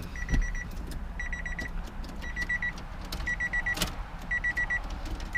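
Honda Del Sol's dashboard warning chime beeping in short rapid runs about once a second, with a few sharp clicks as the key is worked in the ignition. The car does not crank or start.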